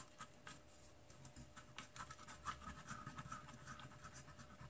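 Faint scraping and small clicks as a large can-type filter capacitor is twisted and worked loose from its mounting ring in a sheet-metal chassis. There is a sharper click right at the start.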